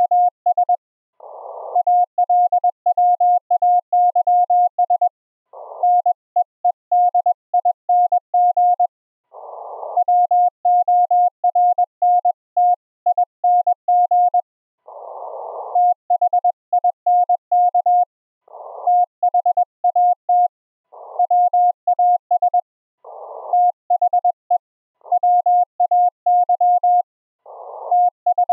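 Morse code (CW) on a ham radio: a steady tone near 700 Hz keyed on and off in dots and dashes. Short bursts of hiss come between groups of characters, the band noise heard through the receiver's narrow filter.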